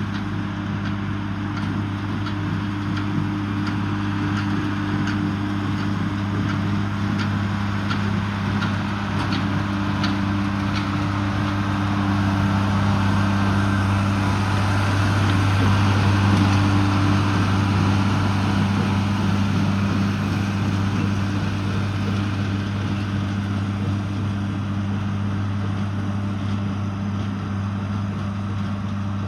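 John Deere 4040's six-cylinder diesel running steadily under load as it pulls a small square baler, getting louder toward the middle as it passes closest. A quick, regular ticking from the baling gear runs through the first half.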